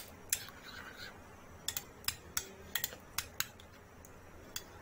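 Metal spoon stirring a thick yogurt, chili powder and ketchup mixture in a ceramic bowl, clicking against the bowl in a series of irregular sharp taps.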